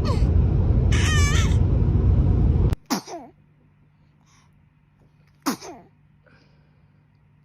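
Baby sneezes, each followed by a tiny high squeak that falls in pitch. In the first part a loud low rumble sits under the short squeals and cuts off suddenly; then two quieter sneeze-and-squeak pairs follow, the second well after the first.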